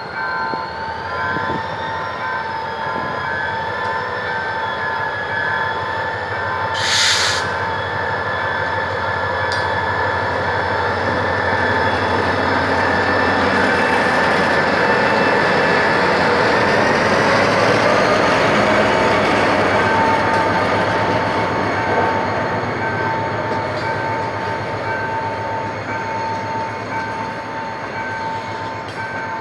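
Materfer MTF-3300 diesel locomotive pulling away with its passenger coaches, engine running and wheels rolling past close by, loudest about halfway through as the locomotive goes by. A level-crossing alarm pulses steadily behind it, and a short hiss sounds about seven seconds in.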